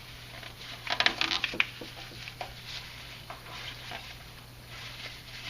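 A quick run of metallic clinks and rattles about a second in, then a few light ticks, over a steady low hum: hand tools and brake hardware being handled at the wheel.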